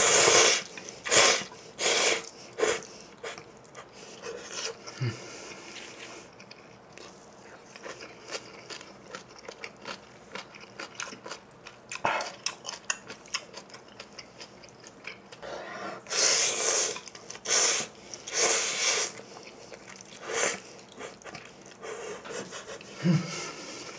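Close-miked slurping of instant ramen noodles from a bowl of broth, with quieter chewing in between. Runs of loud slurps come at the start and again past the middle.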